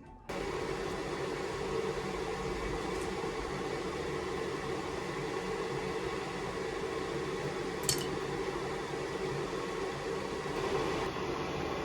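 Soldering fume-extractor fan running steadily; it starts suddenly just after the beginning. A short click comes about eight seconds in.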